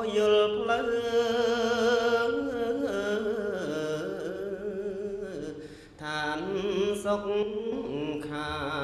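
A single voice chants a Buddhist devotional melody in long held notes with wavering pitch, breaking off briefly about six seconds in and then going on.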